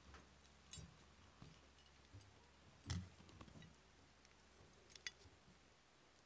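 Light clicks and knocks of small metal parts being handled and fitted as a cast iron coin bank is put back together, with a louder knock about three seconds in and two sharp clicks a little after five seconds.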